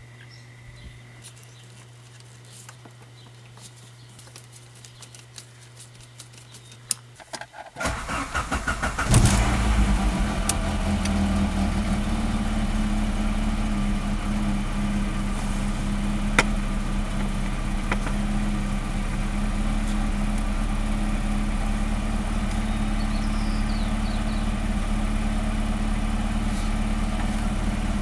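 1990 Saab 900S four-cylinder engine being cranked by the starter about eight seconds in, catching after a second or so, then idling steadily. Before that only faint clicks and a low hum.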